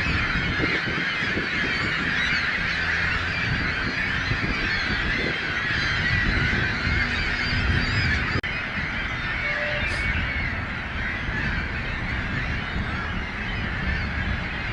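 A large flock of birds calling all at once, many calls overlapping into a continuous din, with a brief sharp break a little past halfway.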